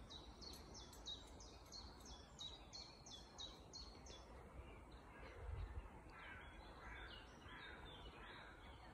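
Faint woodland birdsong: a small songbird repeats a quick series of short high notes, about three a second, for the first four seconds or so, followed by softer, lower chirping. A soft low thump about halfway through.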